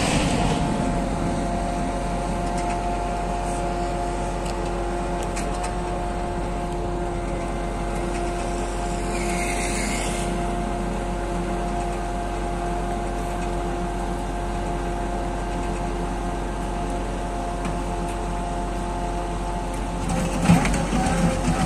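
Road cold-milling machine running, its diesel engine and cutting drum making a steady drone with a few held tones as it mills the asphalt surface. A brief hiss comes about nine seconds in, and a few knocks near the end.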